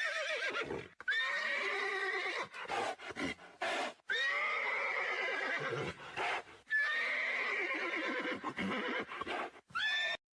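Horses neighing: about five whinnies one after another, each a high call that wavers and falls away, with short gaps between them.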